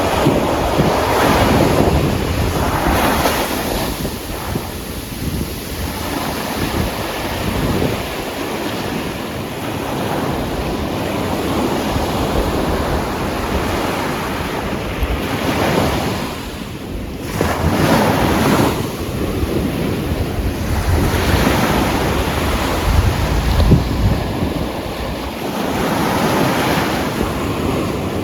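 Atlantic surf breaking and washing up a black volcanic sand beach in repeated swells a few seconds apart, with wind rumbling on the microphone.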